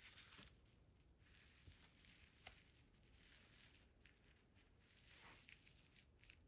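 Faint squishing of mashed cheeseburgers and fries under the soles of chunky platform boots treading on a tile floor, a series of soft squelches and light steps.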